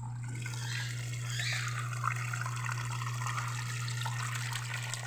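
Consul 12 kg washing machine draining: soapy wash water gushing and splashing out, over a steady low hum. The rush of water builds up about half a second in.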